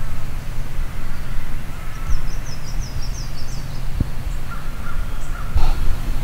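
Birds calling outdoors over a steady low rumble of wind on the microphone, with a quick run of high chirps about two seconds in.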